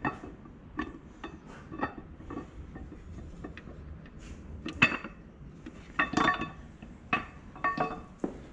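A string of sharp metallic clinks with short ringing, about a dozen, as steel cam tappets and other parts are pulled from a bare 24-valve Cummins engine block and handled. The loudest clink comes a little past the middle, with a quick cluster just after.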